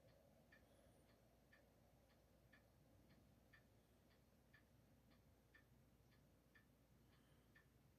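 Near silence with a clock ticking faintly, about two ticks a second, alternating louder and softer.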